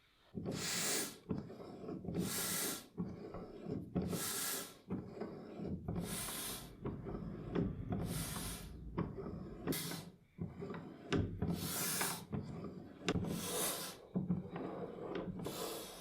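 German 'Rekord' air pump being worked stroke after stroke, each stroke letting out a short hiss of air, about eight in all, roughly every two seconds. Softer rubbing of the pump's moving parts runs between the hisses.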